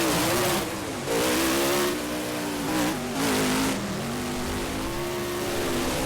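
Monster truck engine revving up and down over and over, its pitch rising and falling. Three loud, rushing surges of full-throttle noise come in the first four seconds.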